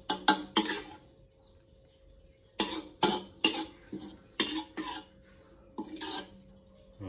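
Kitchen utensils knocking against pots and dishes: about a dozen short clinks with a brief ring, in quick groups of two or three.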